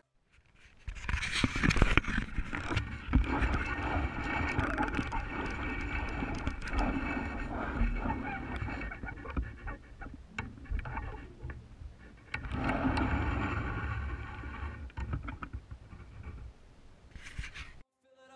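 Outdoor camera sound: a low, uneven rumble of wind on the microphone, with scraping, rustling and scattered knocks from handling fishing gear in brush, and a brief drop-out near the end.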